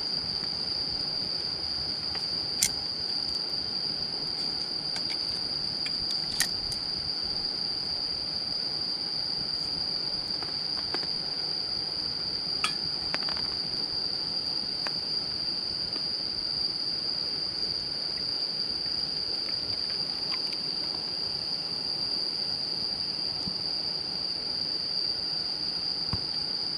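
Insects chirring in one steady, unbroken high tone, with a few sharp pops from a campfire, three of them clearly standing out.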